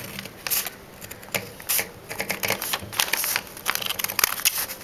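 Scissors snipping through several layers of folded paper: a run of short, crisp cuts at an uneven pace.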